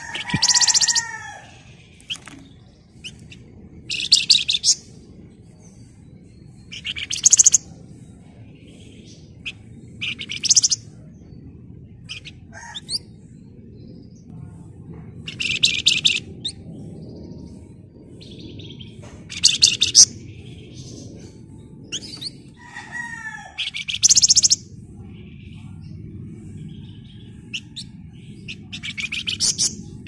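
Caged Javan fulvetta (flamboyan) giving short, fast, high-pitched rattling trills every three to five seconds, some led in by lower, downward-curving notes.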